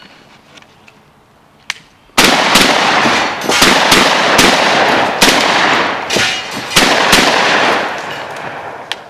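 Shotgun firing a rapid string of shots: about nine in some six seconds, starting about two seconds in, each shot echoing into the next. The echo fades out near the end.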